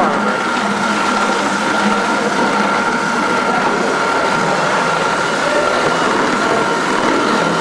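A motor running steadily, an even rushing noise with a constant high whine through it.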